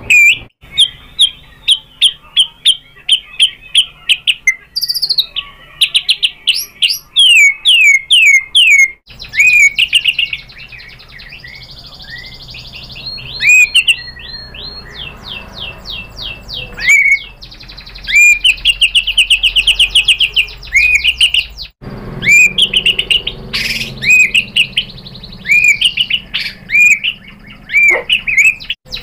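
White-rumped shama singing: fast runs of repeated sharp, whistled notes and trills, phrase after phrase with short pauses between them.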